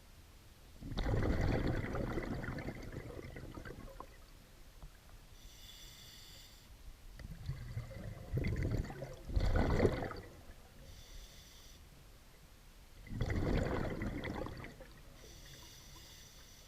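A scuba diver breathing through a regulator underwater: three exhalations come out as noisy bursts of bubbles, each a second or two long, and between them the inhalations are fainter, with a thin whistling hiss from the demand valve.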